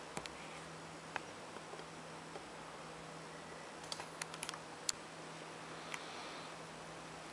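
Quiet room tone with a steady low hum and a scattered run of small, sharp clicks at irregular intervals, most of them bunched together around the middle.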